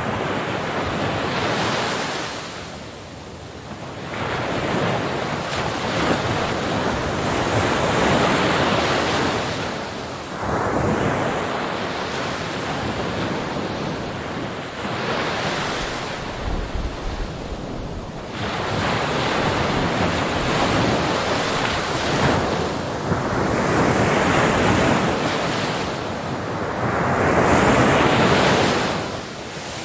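Ocean surf: waves breaking and washing in, a continuous rush that swells and falls back every few seconds.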